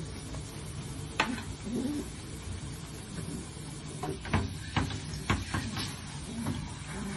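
A handful of short, sharp knocks and clicks against a bathtub: one about a second in, then a quick cluster of four or five a little past the middle.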